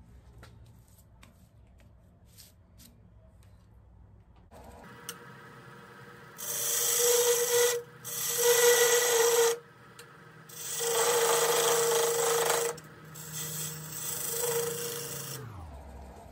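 Wood lathe spinning a dry tea tree (melaleuca) blank while a hand-held turning tool cuts it in four loud scraping passes, each a second or two long. Near the end the lathe winds down with a falling hum.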